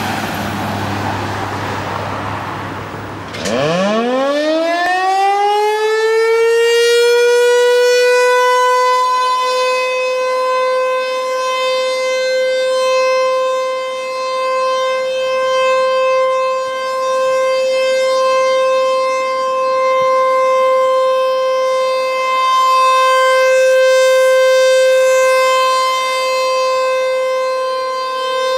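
American Signal T-128 rotating siren sounding a scheduled test: after a few seconds of rushing noise it winds up from a low pitch to one steady, loud tone. The tone swells and fades as the horn turns.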